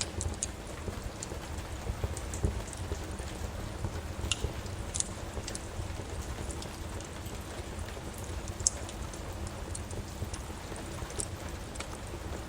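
Steady rain with a wood fire crackling: scattered sharp pops over a steady low rumble.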